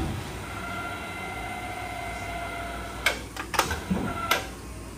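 Manual box and pan brake's steel bending leaf being swung on its hinges: a steady, thin metallic squeal for a couple of seconds, then several sharp steel clanks and knocks.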